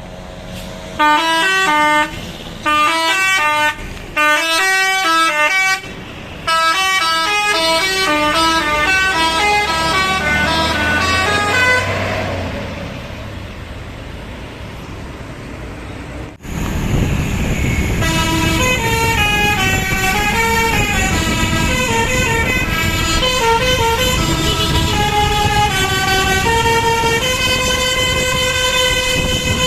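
A bus's Basuri 'telolet' multi-tone air horn playing a melody: a few short blasts, then a longer tune that stops about 12 seconds in. After a break, a second long tune plays over the low noise of the bus.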